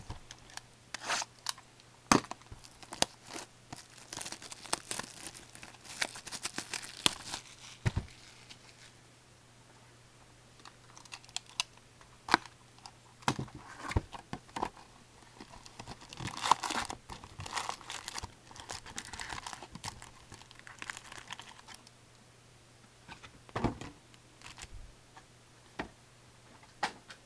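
Packaging of a box of 2007-08 Fleer Ultra hockey cards and its packs being torn open by hand: plastic and foil wrapping crinkling and tearing in irregular spells, with sharp taps of cardboard and cards.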